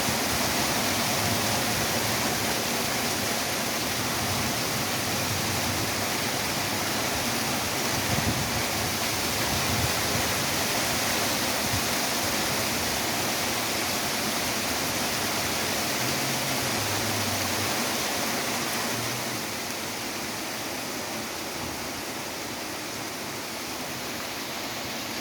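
Heavy rain pouring down in a steady, loud hiss, easing slightly about three-quarters of the way through.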